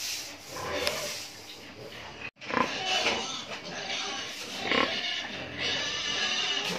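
Pigs in farrowing pens grunting and squealing, with a sudden brief break in the sound about two seconds in.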